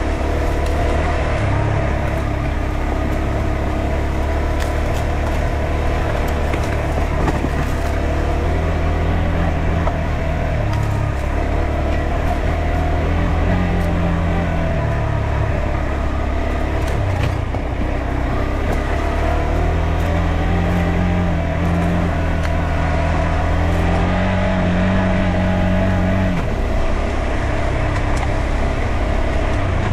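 KTM 390 Adventure's single-cylinder four-stroke engine pulling the bike along a dirt trail on a gentle climb, its note shifting up and down with the throttle. A few sharp clicks are heard over it.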